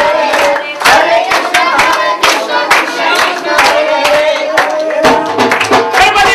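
Group devotional singing with sharp, rhythmic clapping beats. A crowd's noise fills in near the end.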